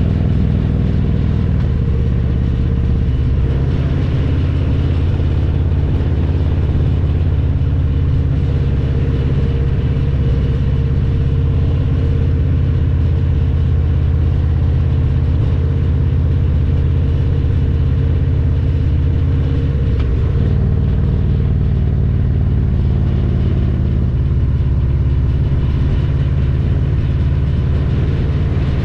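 Harley-Davidson Road Glide Special's Milwaukee-Eight 114 V-twin running under way through Vance & Hines Power Duals headers and Cobra Neighbor Hater slip-on mufflers. It is a steady, loud exhaust note, and the engine's pitch shifts a few times along the way.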